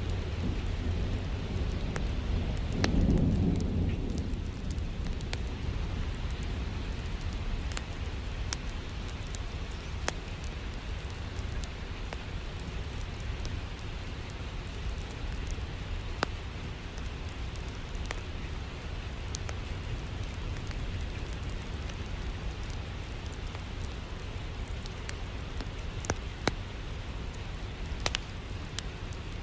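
Steady rain with a low rumble of thunder swelling a few seconds in, over scattered sharp crackles of a wood fire in a fireplace.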